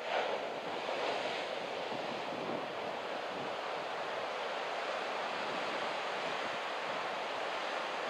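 Surf breaking and washing up the beach: a steady rush of wave noise that swells suddenly at the start and then holds even.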